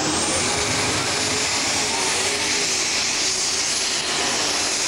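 Unlimited super stock pulling tractor's turbocharged diesel engine running flat out under the load of the sled. A high turbo whine finishes climbing just after the start and then holds steady over the engine.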